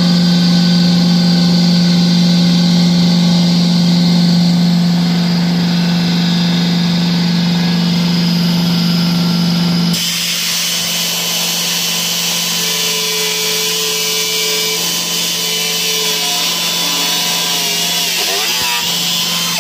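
Power cutting tool with a cheap abrasive cutting wheel, cutting through a Corvette's plastic firewall panel. A steady hum for the first half, then about halfway it changes to a brighter, hissier cutting sound.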